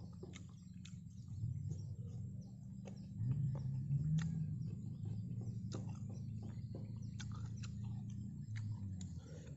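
Chewing a mouthful of fried chicken liver and gizzard from a skewer: many small clicking mouth sounds scattered through. Underneath runs a low steady hum, the loudest sound, which swells about three seconds in.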